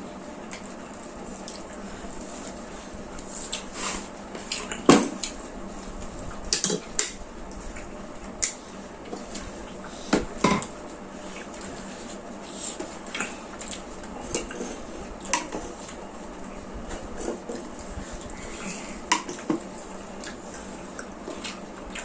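Spoons and plates clinking and scraping while a meal is eaten: scattered light clicks with a few louder knocks, the loudest about five seconds in, over a steady hiss.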